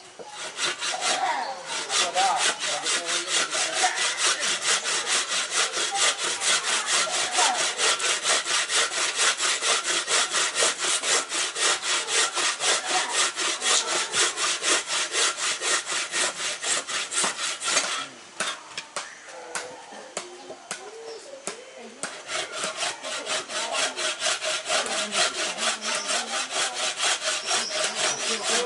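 Hand saw cutting through timber, fast back-and-forth strokes in a steady rhythm that stops for a few seconds past the middle and then starts again.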